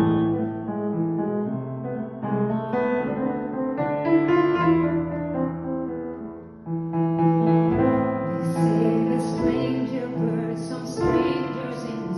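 Piano playing a slow, sustained accompaniment, with a singing voice coming in about eight seconds in.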